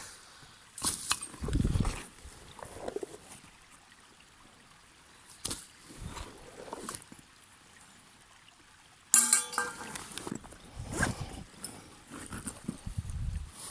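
Camp cookware being handled: intermittent knocks and rustles, and about nine seconds in a sharp metallic clink that rings briefly, over a faint babbling stream.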